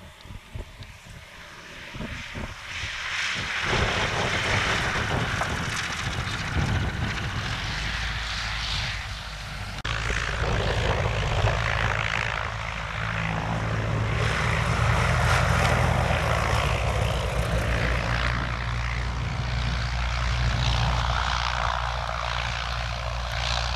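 Propeller-driven light aircraft piston engines on approach to land. The first plane's engine swells from faint to loud over the first four seconds, with wind buffeting the microphone at first. After a break about ten seconds in, a second high-wing single-engine plane drones steadily as it comes in low and touches down.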